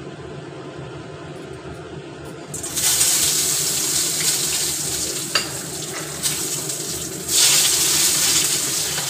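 Whole spices hitting hot mustard oil in a kadai: a steady low hum, then a sudden loud sizzle about two and a half seconds in. The sizzle surges again about seven seconds in as chopped onion goes into the oil, with a few clicks and scrapes of the spatula against the pan.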